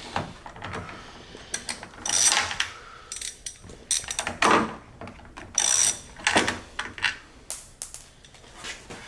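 Ratchet wrench clicking in several short runs as a door-handle mounting bolt is backed out.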